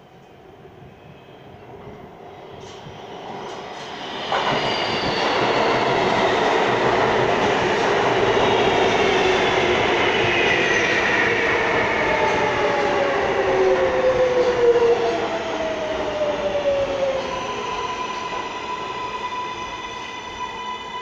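An R143 L subway train pulling into the station. It rumbles in, growing louder over the first few seconds and stepping up sharply as it reaches the platform. Its motors then whine down in pitch as it brakes, and it settles into a steady high whine as it nearly stops.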